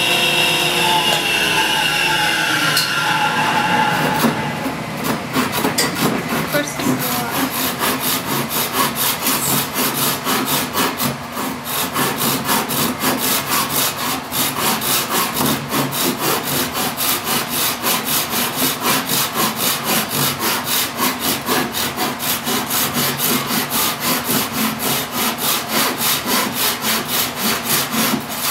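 A hand saw cutting across a birch board in steady back-and-forth strokes, about two a second. Before the sawing starts, a power tool's motor spins down over the first few seconds, its pitch falling.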